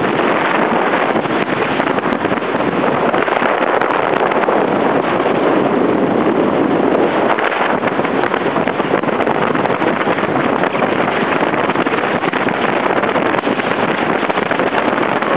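Small open motorboat running at speed: a steady rush of wind buffeting the microphone and water hissing past the hull, with the motor underneath.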